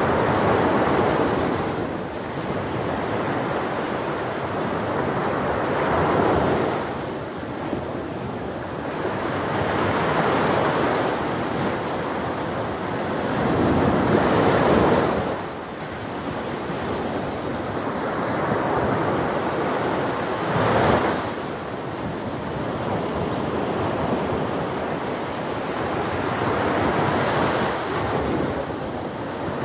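Ocean surf breaking on a beach, the wash swelling and fading every few seconds, with the strongest wave about halfway through.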